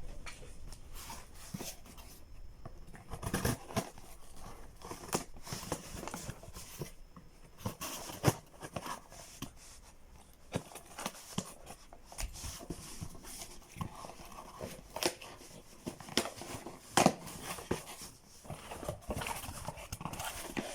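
A parcel being opened by hand: irregular crinkling, rustling and tearing of packaging, with scattered sharp clicks and taps.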